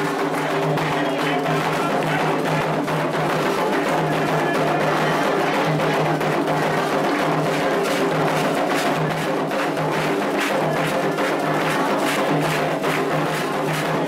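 Candomblé ritual music: atabaque hand drums and a struck bell play a steady driving rhythm for the orixás' dance, with voices singing along.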